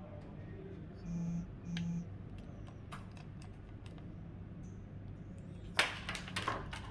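Clicks of typing on a computer keyboard, sparse at first and then a quick run of keystrokes near the end, with two short electronic beeps about a second in.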